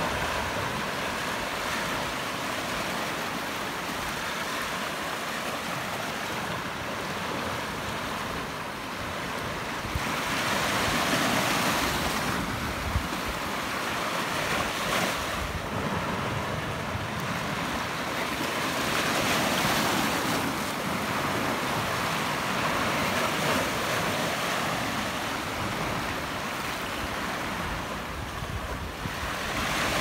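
Small sea waves washing over a flat rock shelf and draining back in a continuous wash of surf, swelling louder several times as bigger waves break and spread foam across the rock.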